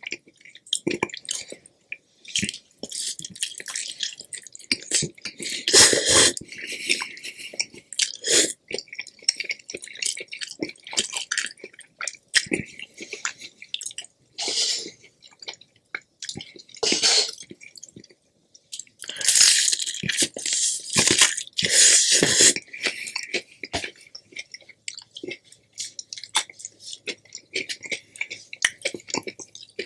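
Close-miked chewing and wet mouth sounds of a person eating, with irregular smacks and clicks that come in louder clusters about six seconds in and again from about nineteen to twenty-two seconds.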